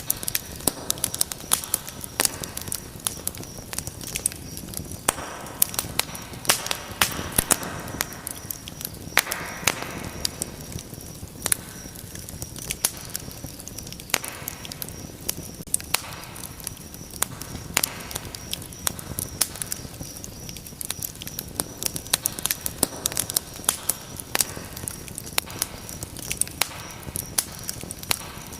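Wood fire in a fireplace crackling steadily, with frequent sharp pops and snaps over a soft hiss.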